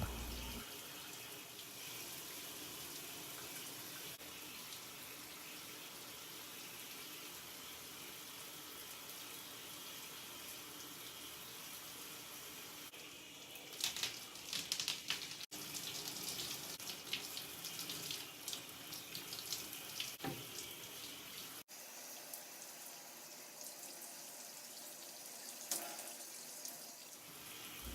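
Water running steadily from a tap or shower as shampoo is rinsed out of hair. From about halfway through there is irregular splashing and spattering as the water breaks over the hair and hands.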